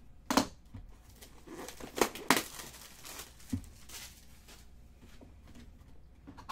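Cardboard trading-card box and loose cards being handled on a table: rustling, with a sharp knock near the start, two more about two seconds in, and a softer thud a second later.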